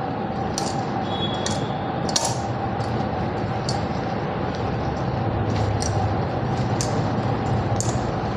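Bangles clinking against each other and the steel bowl in sharp, irregular clicks, about eight of them, as a hand mixes grated raw papaya with spices. A steady background hum with a constant tone runs underneath.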